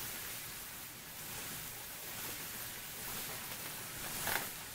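Sausage, onions and red peppers sizzling on a Blue Rhino 36-inch flat-top griddle, a steady hiss, with a short louder burst of noise near the end.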